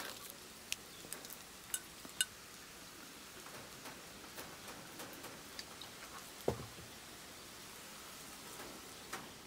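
Breaded chicken-of-the-woods mushroom frying in a pan: a faint steady sizzle, with a few light clicks in the first couple of seconds and a dull thump about six and a half seconds in.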